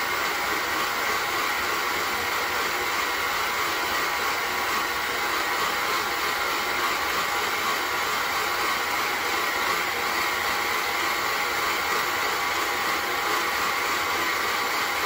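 Stand mixer motor running steadily at speed, its flat beater turning through red velvet cake batter in a stainless steel bowl.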